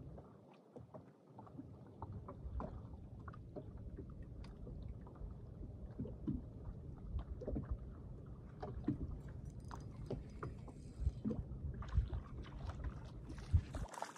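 Small waves lapping and slapping against the hull of a bass boat, a low steady wash with many light knocks scattered through it and a sharper knock near the end.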